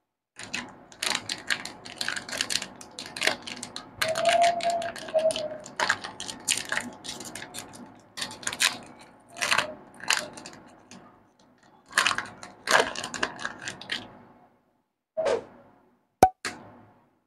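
Snack wrapper with a foil lining being torn open and crinkled by hand: dense crackling rustle that breaks off about fourteen seconds in, followed by a few short separate crinkles.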